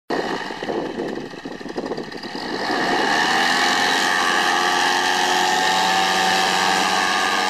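Paramotor engine running roughly at low speed, then revving up about two and a half seconds in and holding a steady high pitch at full power for takeoff.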